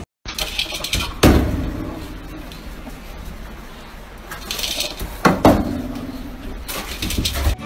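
A few sharp knocks and clatters, the loudest about a second in and about five seconds in, with rustling and handling noise between them.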